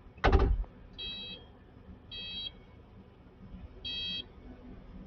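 A loud clunk, then three short electronic beeps from a skid steer's cab warning beeper as the operator gets in.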